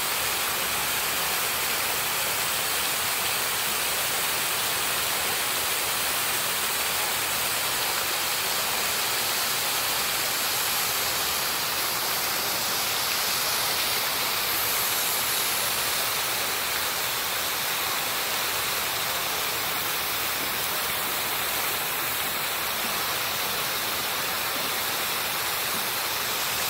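Water-curtain fountain: water pouring from the canopy and splashing into the pool, with small jets landing in the water, a steady rushing splash.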